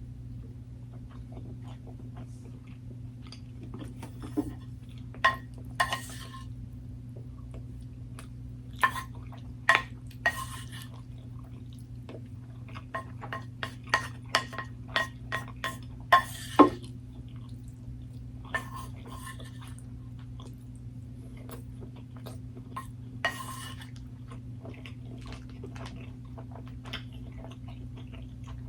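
Eating sounds: a utensil clinking and tapping against dishware in scattered sharp, ringing clicks, with a quick run of them around the middle, along with chewing. A steady low hum runs underneath.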